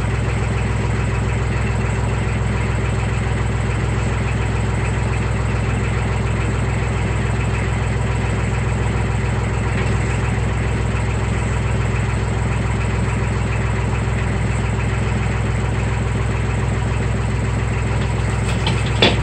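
Engine idling steadily at an even, unchanging speed.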